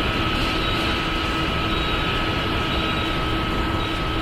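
Steady mechanical roar of factory machinery, an even rushing noise with a constant high whine and a fainter lower hum, unchanging throughout.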